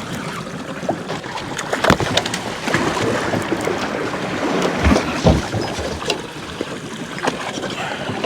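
Steady boat and water noise at sea, with a few sharp knocks about two seconds in and a pair more about five seconds in.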